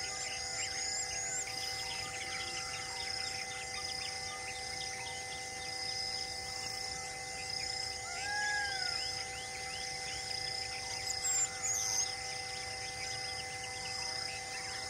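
Insects and birds calling together: a steady, pulsing high insect trill with repeated short rising chirps over it, and a single arching bird call about eight seconds in.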